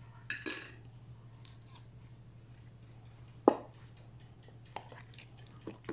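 Metal spoon set down on a ceramic saucer: one sharp clink about three and a half seconds in, with a few faint handling ticks near the end over a steady low hum.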